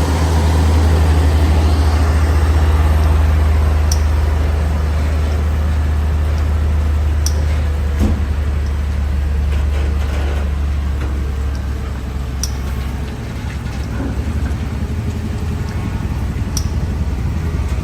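Heavy truck's diesel engine running steadily with a deep drone, easing off slightly near the end.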